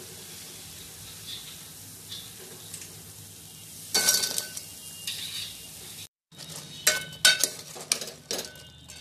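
Steel spoon clinking against a steel pot while fried gulgule are turned in sugar syrup. There is one loud clink about four seconds in, then a quick run of sharp clinks, each with a short ring.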